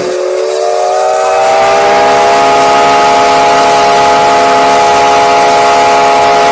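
Steam locomotive whistle sounding one long blast, several notes at once with a steam hiss. The pitch slides up slightly as it comes on, then holds steady.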